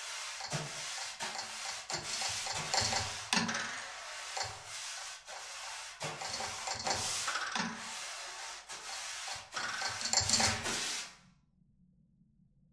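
Extended-technique scraping and rubbing on a prepared viola and prepared timpani: irregular gritty rasps with small clicks, cutting off abruptly about eleven seconds in.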